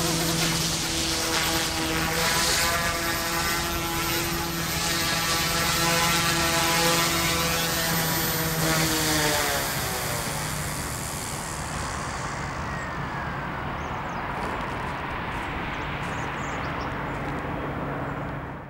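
OMPHOBBY M2 electric micro RC helicopter's direct-drive rotors whining at a steady speed, then spooling down with a falling pitch about nine to ten seconds in. After that only a steady hiss remains.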